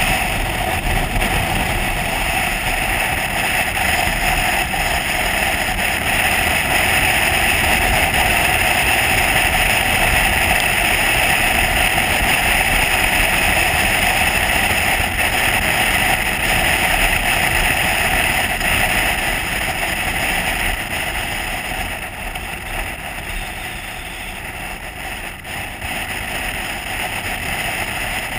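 Motorcycle engine and wind rush while riding at steady road speed, a continuous drone that eases off somewhat about three quarters of the way through.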